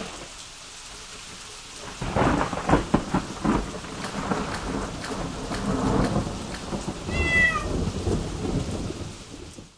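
Rain-and-thunder sound effect, a steady patter of rain with rumbling thunder that swells about two seconds in, and a cat meowing once about seven seconds in.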